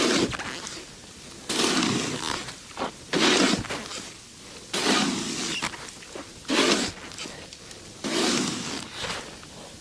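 Snow shovel scraping and scooping dry, powdery snow in repeated strokes, about one every one and a half seconds.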